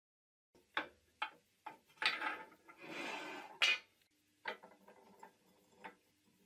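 Cast-iron parts of a Rapidor power hacksaw vise knocking and sliding against each other as they are handled: a few sharp clanks, about a second and a half of metal scraping, another clank, then lighter clinks.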